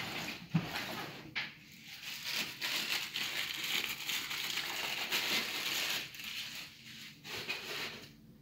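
Plastic wrapping crinkling and rustling as statue pieces are handled, with a few light knocks, the first about half a second in. It quietens after about six seconds.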